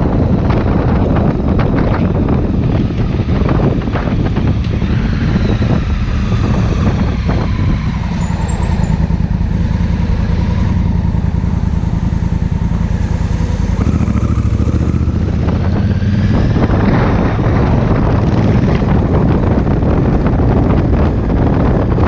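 Honda Africa Twin CRF1000L's parallel-twin engine running as the motorcycle rides through town streets, with wind rushing over the microphone. The wind eases in the middle as the bike slows to turn a corner, then builds again as it speeds up.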